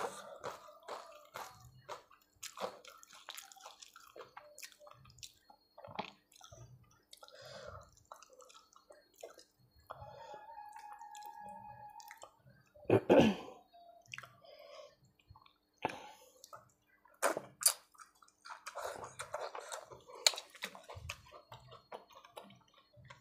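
Close-up wet eating sounds: chewing, lip smacks and mouth clicks as rice with dal and vegetables is eaten by hand, with squishing as fingers mix the rice on a steel plate. The loudest wet burst comes about halfway through.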